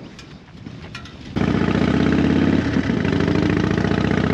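Harley-Davidson Fat Bob's V-twin engine running steadily, coming in suddenly about a second and a half in after a quiet stretch.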